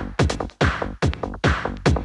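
Fast electronic dance music in the Valencian 'sonido de Valencia' (bakalao) style, with a steady kick drum about two and a half times a second over a busy synth and percussion mix.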